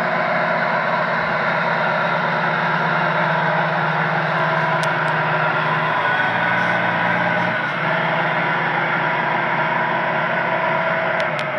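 Tamiya radio-controlled model truck driving along: a steady engine-like hum, its low note easing a little over halfway through, with a few faint ticks.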